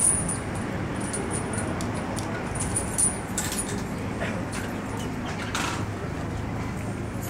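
Outdoor street ambience: a steady low rumble of traffic, with a few light clinks and short high chirps scattered through it.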